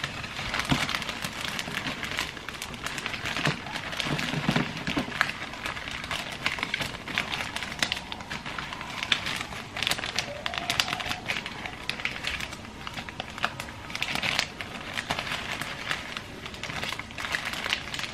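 Thin plastic gallon storage bag crinkling and rustling in irregular bursts as a paper-towel-wrapped loaf is pushed into it.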